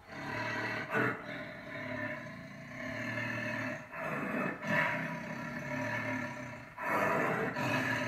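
Tiger growling and snarling through bared teeth, in several long rough bouts with short breaks between.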